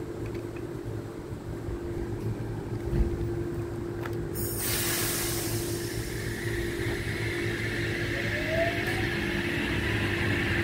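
Oscar H-set double-deck electric multiple unit pulling away from the platform: a steady hum, joined about four and a half seconds in by a sudden rushing noise of the cars rolling past. Near the end a rising electric whine comes in as the train accelerates.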